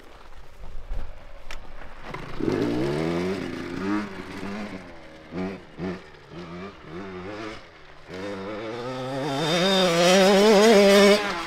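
Small two-stroke dirt bike engine, a KTM 65, revving up and down under way with short throttle blips, then climbing in a long, wavering rev that gets loud near the end and stops abruptly.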